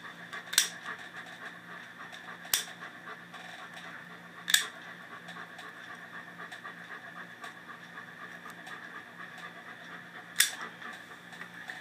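Plier-style dog nail clippers snipping through a dog's nails: four sharp clicks, the last after a longer pause, over steady background noise.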